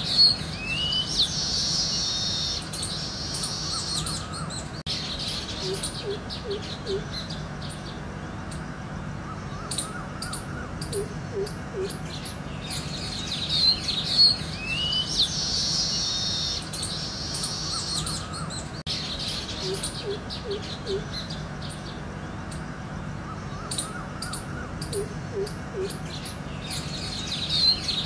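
Mixed birds chirping and trilling, with short low calls in groups of three or four, over a steady background hum. The same stretch of birdsong repeats about every 14 seconds, as a looped nature soundtrack does.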